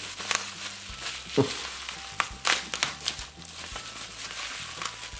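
Plastic bubble wrap being handled and pulled apart by hand: irregular crinkles and crackles as a small wrapped part is unwrapped.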